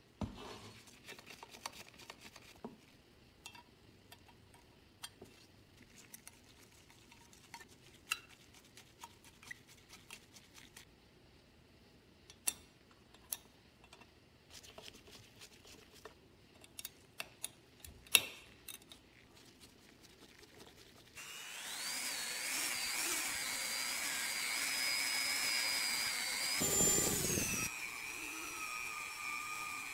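Light metal clicks and taps from handling and fitting the parts of a Duncan parking meter's coin mechanism. About 21 seconds in, a Dremel 3000 rotary tool starts with a high whine, polishing a chrome meter part with a buffing wheel. The whine wavers in pitch and grows louder for a moment near the end.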